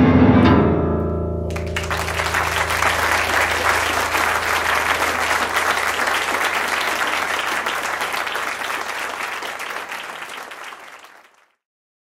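A grand piano's closing chord rings out and dies away, and about a second and a half in an audience breaks into applause, which tails off and fades away near the end.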